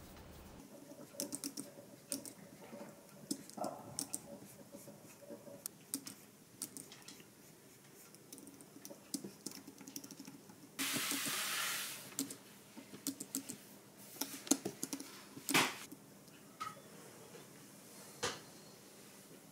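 Keys of an Apple Magic Keyboard pressed in short irregular runs of soft clicks, mixed with taps of a stylus on a pen display. About eleven seconds in, a rushing noise lasts about a second.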